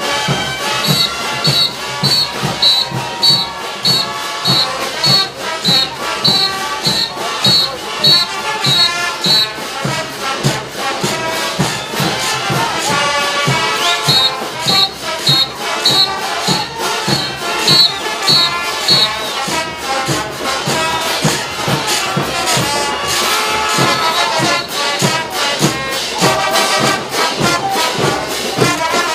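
Brass band playing a morenada, trumpets and trombones over a steady drum beat. A high note repeats about twice a second for most of the first nine seconds and again from about fourteen to nineteen seconds in.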